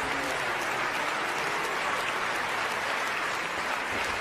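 Concert-hall audience applauding steadily: dense, even clapping from a large crowd.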